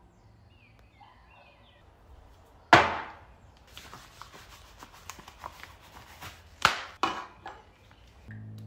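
A metal can set down on a wooden tabletop with a sharp knock, then handled by rubber-gloved hands, giving light clicks and two more sharp knocks. A steady low hum starts near the end.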